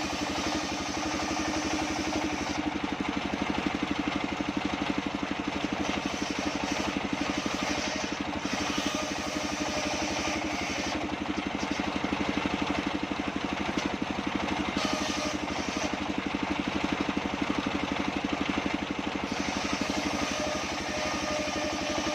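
Sawmill band saw machine running steadily with a fast, even mechanical beat, working on sengon (albasia) wood. A hiss in the upper range fades and returns several times.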